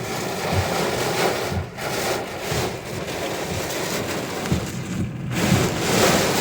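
Heavy rain and gusting wind of a tornado storm beating on a parked car, a constant noise that swells and eases, with low thuds.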